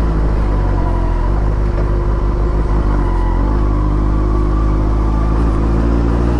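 Benelli TNT 600i's inline-four engine running steadily at low road speed, heard from the rider's seat, with slight shifts in engine note about a second in and again around three seconds in.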